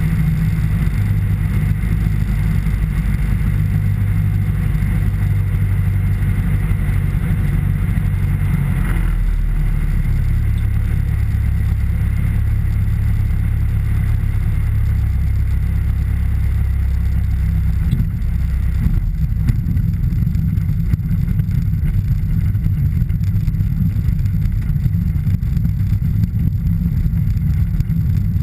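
The Piper PA-28-161 Warrior's Lycoming O-320 four-cylinder engine and propeller run steadily at low landing power, heard inside the cabin. The note shifts about nine seconds in, with a slight bump as the wheels touch down, and it settles lower again later in the rollout.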